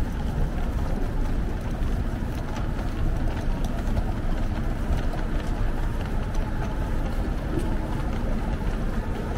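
Steady low rumbling street noise, with no single sound standing out.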